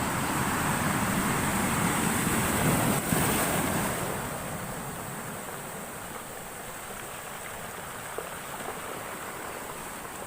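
Heavy storm surf washing ashore: a wave's rush swells over the first few seconds, then eases off into a steadier wash.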